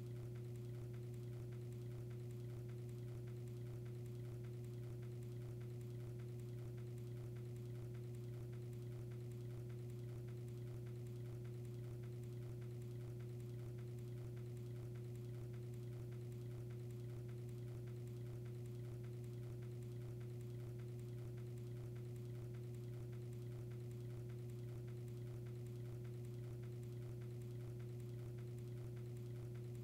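Steady low hum with a fainter, higher steady tone above it, and a faint rapid ticking texture underneath.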